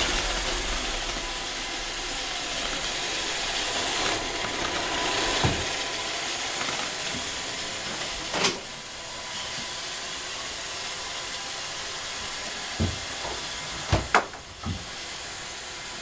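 iRobot Roomba robot vacuum running, its motor and brushes giving a steady whirring hiss, with a few scattered knocks, three of them close together near the end.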